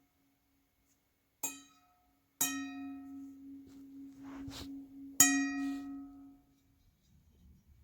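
A metal part struck three times, each strike ringing on like a small bell with a clear pitch. The second and third rings are the longest and loudest. There is a short scrape between them.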